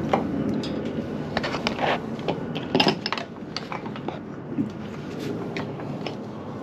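Irregular metallic clinks and knocks of tools and car parts being handled during engine work, the loudest cluster about three seconds in.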